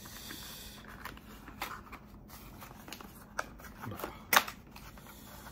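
Small white cardboard box being handled and opened: a soft scraping rustle of card, then a few light taps and knocks, the sharpest a little after four seconds in.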